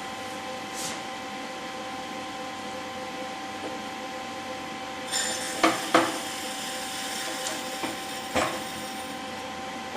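A few sharp knocks, two close together a little past halfway and one more near the end, as the air compressor is lowered on a chain hoist and settles into its cart frame, over a steady background hum.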